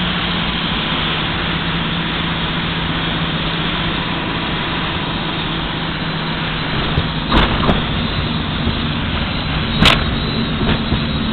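Engines and propellers of a light twin-engine aircraft droning steadily, heard inside the cabin, with a low steady hum under the noise. A few sharp knocks come about seven seconds in and again near the end, the last one the loudest.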